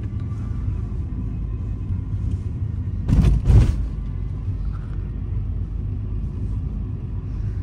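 Steady low road and engine rumble heard from inside a car's cabin while driving slowly. About three seconds in there are two loud, short bursts of noise in quick succession, such as a bump or a knock.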